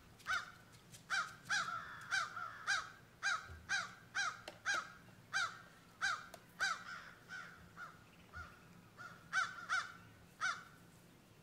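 A bird calling over and over in short, pitched calls, about two a second, with a brief pause about eight seconds in and a few more calls near the end.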